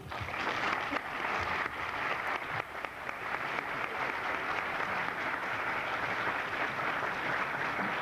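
A large audience applauding, a dense, steady clatter of many hands that starts abruptly as a talk ends.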